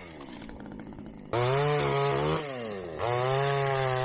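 Two-stroke chainsaw cutting branches from a downed tree: it idles briefly, then is revved to full speed twice, each burst about a second long, and the pitch falls each time the throttle is let off.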